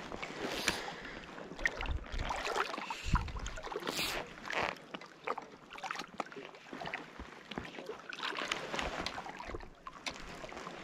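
Small waves lapping and slapping irregularly against the side of an inflatable float tube on open water, with occasional low wind buffets on the microphone.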